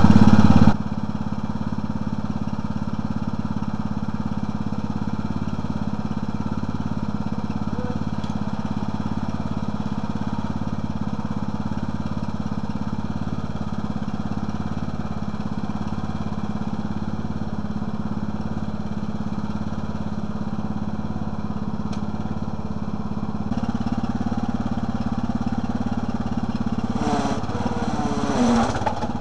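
Toro riding lawn tractor's engine idling steadily. It runs a little louder for the last few seconds.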